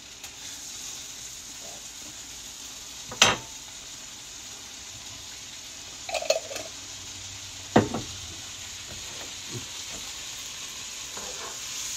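Butter sizzling steadily in a wok as minced garlic is spooned into it, with a few sharp clicks and taps from the spoon and the glass garlic jar and its lid. The loudest tap comes about three seconds in, and a small cluster comes about six seconds in.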